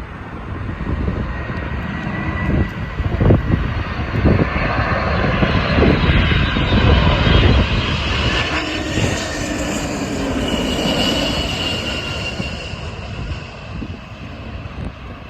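DHL Airbus A300 freighter's twin jet engines on landing approach, a rushing roar with a thin whine that swells to a peak midway and then fades as the aircraft passes. Gusty wind buffets the microphone throughout.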